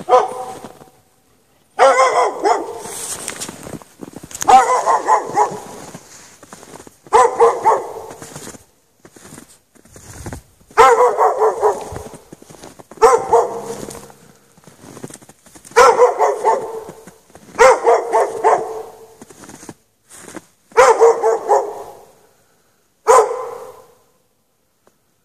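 A dog barking in short bouts of a few barks each, about every two to three seconds, and keeping it up. The dog is chained outside in the snow with no shelter.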